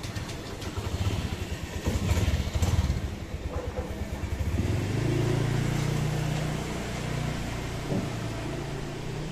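Motorbike engine running close by: a low, rapidly pulsing rumble for the first few seconds, settling into a steadier drone from about halfway through.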